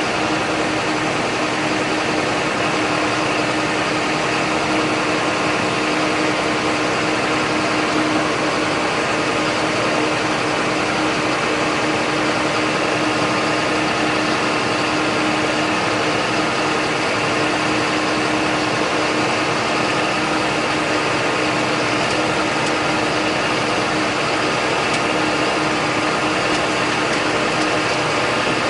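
John Deere 8100 tractor's six-cylinder diesel engine running steadily at an even speed, with a constant hum held at one pitch and no changes in revs.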